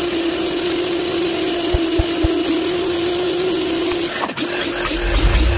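Hercules sliding compound miter saw running with a steady motor whine as its blade cuts through a wooden board. About four seconds in the sound breaks up and changes.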